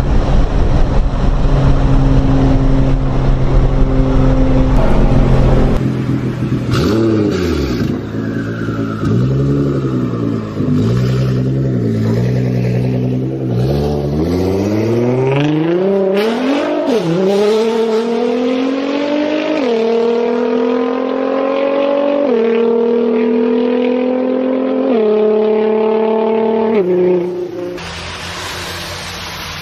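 Nissan GT-R engine heard from inside the cabin at a steady drone. About six seconds in, an R35 GT-R's twin-turbo V6 is revved several times, then accelerates hard with its pitch climbing and dropping at each of several upshifts. Near the end the engine gives way to a quieter rushing hiss.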